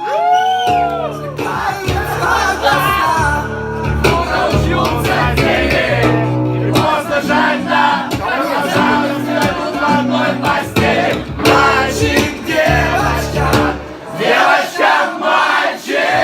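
A live band playing an instrumental passage of a song, with held bass notes, chords and regular drum hits. A single sung note slides down right at the start.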